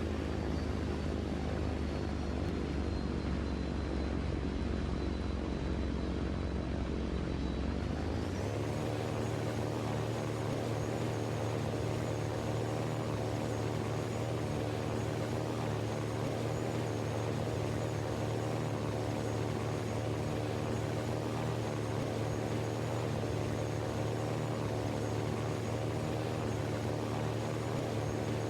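An engine running steadily, its pitch stepping up about eight seconds in and then holding.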